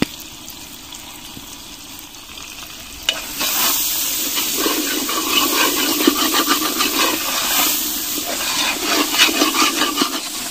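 Perforated metal ladle stirring a thick tomato and onion masala in a large metal pot, scraping and clattering over a frying sizzle; the stirring starts about three seconds in after a quieter stretch of soft sizzling.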